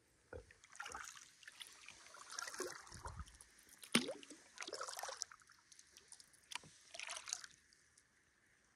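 Paddling a kayak: water splashing and dripping with irregular knocks and clicks, the loudest knock about four seconds in.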